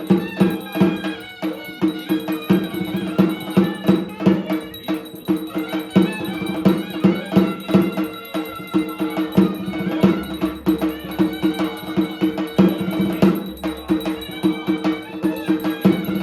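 Traditional music with quick, rhythmic percussion strikes over steady held tones.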